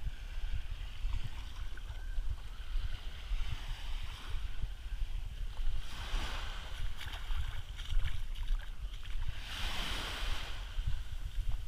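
Small waves lapping and washing up onto a sandy beach, the wash swelling about six seconds in and again, most loudly, near ten seconds. A low rumble of wind on the microphone runs under it.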